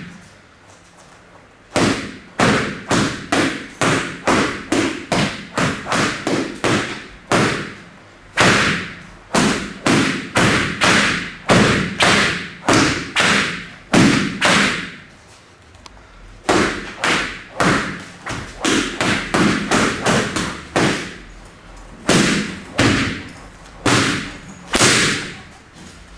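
Sjambok lashing a punching bag over and over in a flowing rhythm: sharp smacking impacts about one and a half to two a second, with a short pause at the start and another about halfway through.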